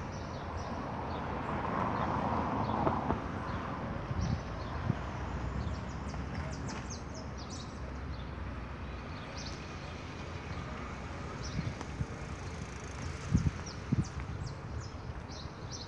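Outdoor street ambience: a steady low rumble of traffic with birds chirping in short bursts throughout, and a couple of sharp knocks near the end.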